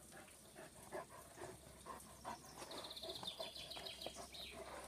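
German shepherd nosing and pawing in loose soil: faint scattered soft scuffs. A faint rapid high ticking runs for about two seconds in the second half.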